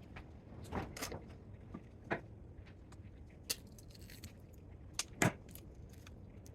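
Scattered clicks and light metallic knocks of small parts and tools being handled while an electrical unit is taken apart, with the loudest knock a little past five seconds in.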